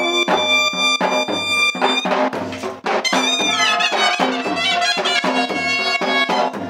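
Pahadi folk band playing: a long straight brass karnal horn sounds held notes, one falling in pitch about midway, over a steady beat on a dhol and a second large drum.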